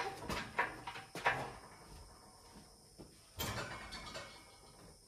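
Metal clunks and knocks, then a longer scrape about three and a half seconds in, as the cylinder head hanging from the engine hoist is shifted and lowered onto the engine block.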